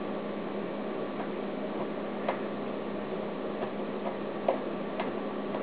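A few sharp, irregularly spaced little clicks and ticks as tiny screws and plastic parts of a Hitec HS-55 micro servo are handled and fitted during reassembly, over a steady background hum.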